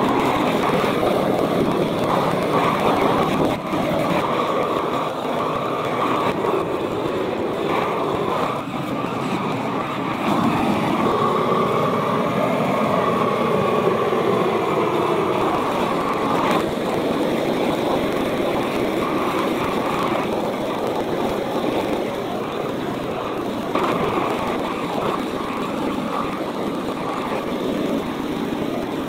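Hand-held propane torch, fed by hose from a propane tank, burning steadily as its flame chars wooden posts and beams.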